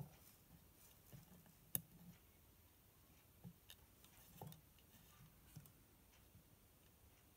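Near silence broken by a few faint, scattered clicks and taps from Dupont jumper wires and a soldering iron being handled on a wooden desk. The sharpest click comes just under two seconds in.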